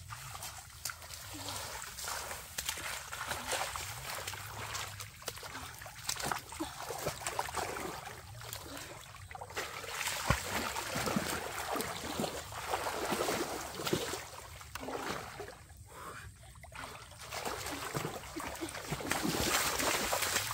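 Muddy water splashing and sloshing as a person wades and churns through a shallow pool with hands and legs. The splashes are irregular and run continuously, growing loudest around the middle and again near the end.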